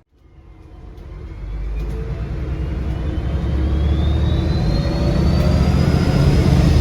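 Bus diesel engine accelerating hard, with a loud turbocharger whistle rising steadily in pitch as the turbo spools up and then holding high. The sound fades in just after the start.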